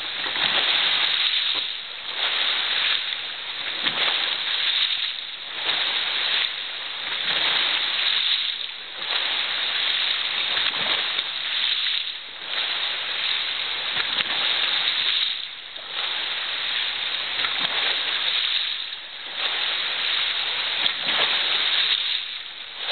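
Water churning and splashing in a pool: a steady rushing noise that surges and eases every few seconds.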